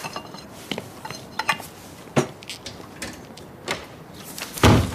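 Dishes and cutlery clinking and knocking in a series of short clatters, with a heavier thud near the end.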